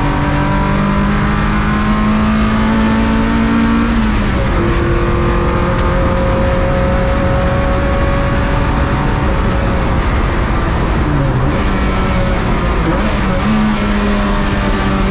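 Rear-mounted Honda H22A four-cylinder engine of a Mini race car running hard at racing speed. Its pitch climbs slowly, drops sharply about four seconds in, climbs again, and steps back up near the end, as with gear changes.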